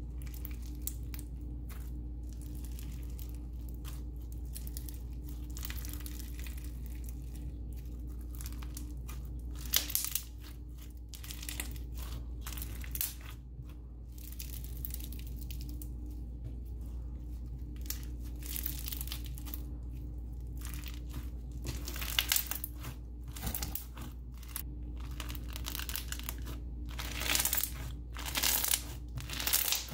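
Floam slime worked by hand, stretched, squished and pressed flat: its foam beads give an irregular crackling crunch that grows denser and louder near the end. The slime tears as it is pulled, because its rubbery base rips easily, which could be a sign of overactivation.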